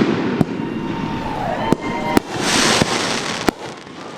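Fireworks popping and crackling, with sharp cracks and a falling whistle. A louder burst of hissing crackle comes about two and a half seconds in, then the sound fades away.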